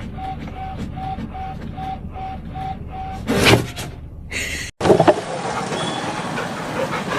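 A row of short, identical beeps, about three a second, that stops after about three seconds. A brief clatter follows, then a steady background hiss.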